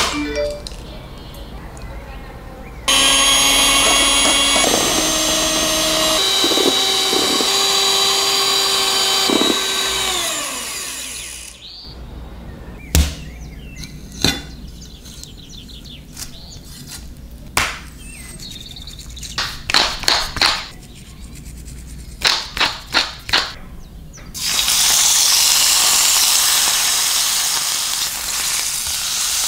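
A small electric kitchen appliance motor runs for about nine seconds, its pitch shifting a few times. A run of sharp taps and clicks follows. About 25 seconds in, raw chicken begins sizzling loudly in a hot frying pan as it is pressed down to crisp.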